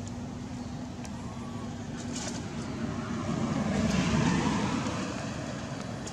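A car passing on the road, its noise swelling to a peak about four seconds in and then fading away. A faint bird chirp about a second in.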